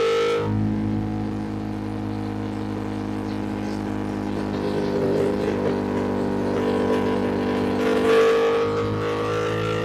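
A 2025 Ducati Panigale V2's V-twin engine running while riding at fairly steady revs. Its note dips just after the start, and it briefly rises and gets louder about eight seconds in.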